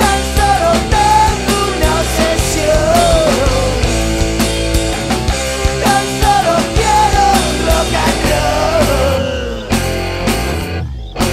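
Studio recording of a rock band playing, with steady drum hits under a bending melodic lead line that comes round twice. The band thins out and drops out briefly near the end.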